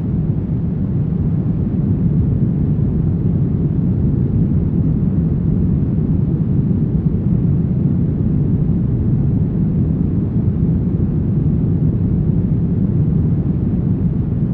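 Brown noise: a steady, deep, low rumbling hiss with most of its energy in the bass and little treble, unchanging throughout.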